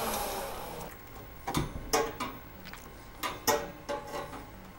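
Scattered metal clicks and knocks of a screwdriver and hands working a graphics board into a workstation's metal card cage, after a hiss fades out in the first second.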